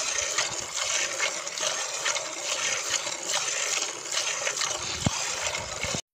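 A thin stream of milk pouring into a half-full aluminium pot, frothing and splashing with a steady hiss.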